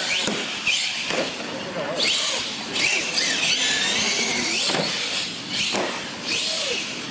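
Electric motor of a radio-controlled monster truck whining, rising and falling in pitch as the truck speeds up and slows, with a few sharp knocks along the way.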